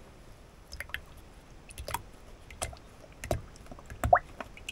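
Oat cream pouring from a carton into a plastic measuring jug, with a few short glugs from the carton about every second.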